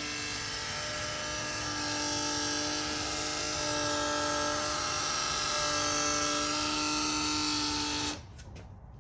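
A 2015 Porsche Macan Turbo with the engine off making a steady whirring hum, growing slightly louder, then cutting off suddenly about 8 seconds in. The sound comes on when the car is unlocked or locked, only while the engine is warm, and its cause is unknown to the owner.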